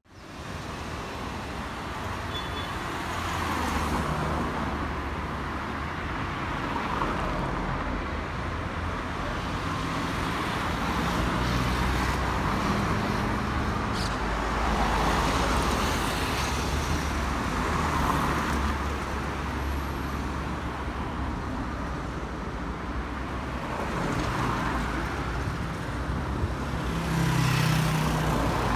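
Road traffic: cars passing one after another, a steady wash of tyre and engine noise that swells and eases several times, with a low engine rumble underneath.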